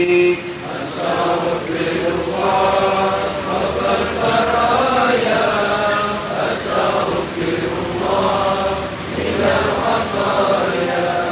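A man chanting zikir over a microphone in long held phrases, with other voices joining in unison.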